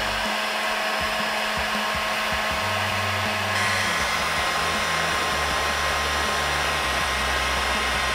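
Electric heat gun running steadily, a rush of blown air with a faint whine, as it shrinks heat-shrink tubing over the joint of a plastic hook on a metal pole. The sound shifts slightly about three and a half seconds in.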